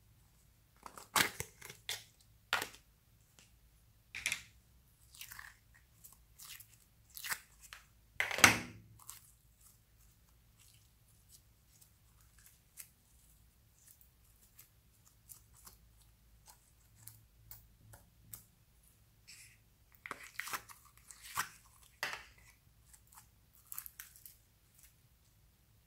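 Hands squeezing, pulling and stretching soft light clay and slime: irregular sticky crackles and small tearing pops, with one louder snap about eight seconds in and a sparser, quieter stretch in the middle.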